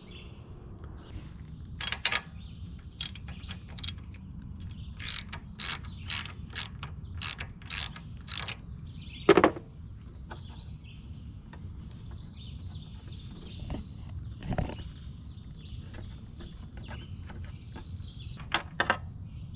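Ratchet and spark plug socket clicking in runs, about two or three clicks a second, as the ratchet is swung back and forth to unscrew a spark plug. A louder knock comes about halfway through, and a few more clicks near the end.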